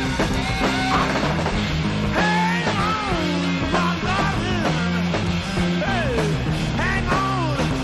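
Psychedelic rock song with electric guitar playing bending, sliding lead lines over steady bass notes.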